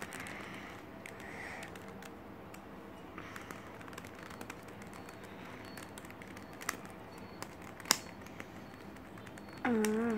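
Small plastic clicks and taps of a GAN Monster Go magnetic 3x3 speed cube being turned and pried at by hand, with one sharper click about eight seconds in. A short hummed voice sound comes near the end.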